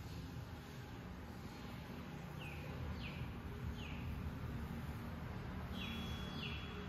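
A bird chirping: short falling chirps, three together about two and a half seconds in and three more near the end, over a low, steady rumble.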